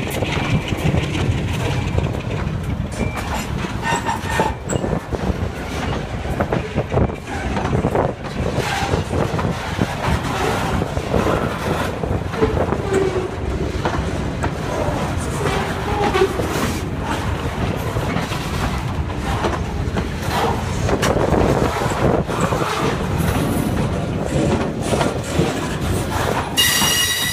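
Freight train of boxcars rolling past at close range, wheels clicking and clanking over the rail joints, with a wavering squeal from the wheels now and then. A brief high-pitched tone sounds near the end.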